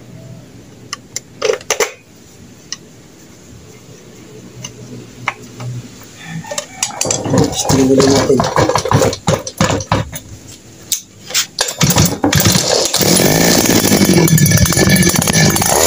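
Kawasaki TD40 two-stroke brush cutter engine being started: a few sharp tool clicks, then from about seven seconds in it fires in short spurts that die away. About twelve seconds in it catches and runs loudly and steadily, so the engine that would not start now runs.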